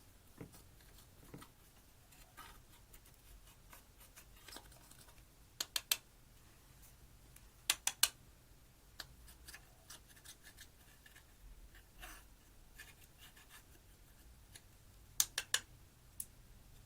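Slime being handled and pressed, giving sharp little pops and clicks, several of them in quick runs of three, with light scratchy rubbing in between.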